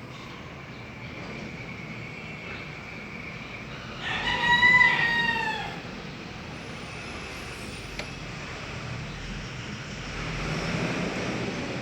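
One long animal call of about two seconds, slightly arched in pitch, about four seconds in, over a steady background hum; a broad swell of noise near the end.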